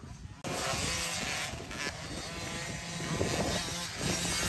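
Dirt bike engine running, starting abruptly about half a second in after a brief quiet moment, with small rises and falls in speed.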